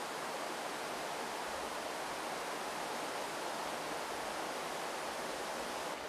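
Steady rush of a fast-flowing mountain stream.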